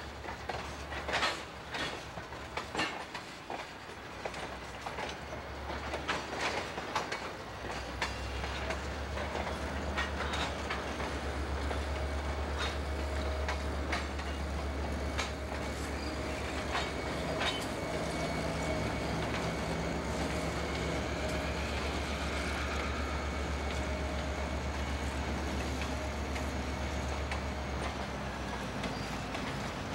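Freight train of tank cars and boxcars rolling slowly past, its wheels clicking over rail joints. From about eight seconds in a diesel locomotive's steady low engine rumble comes in and holds until near the end, with a faint thin whine above it.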